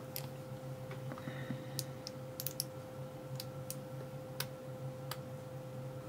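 Sparse light clicks and ticks, about eight spread over a few seconds, from an ASSA Ruko 2 padlock body being handled as its driver pins are worked out one at a time.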